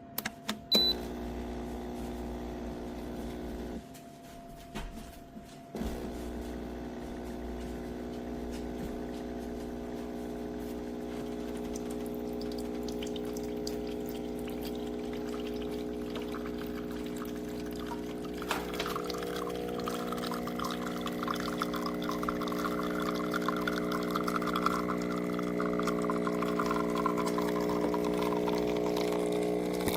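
CASABREWS Ultra espresso machine's pump running with a steady buzzing hum. It stops about four seconds in and starts again about two seconds later. From around eighteen seconds a trickling, liquid sound joins it.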